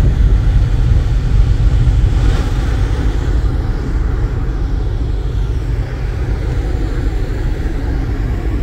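Wind buffeting the phone's microphone on an open ferry deck: a loud, uneven low rumble with a hiss above it, easing a little after about three seconds.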